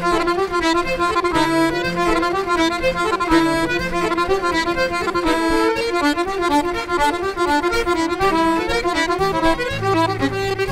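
Irish traditional music played live: a fast tune on accordion, many quick notes a second, over a moving bass accompaniment.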